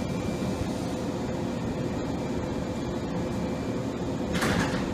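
Train standing at a station platform, its onboard equipment running with a steady hum and faint whine. About four and a half seconds in comes a short hiss of released air.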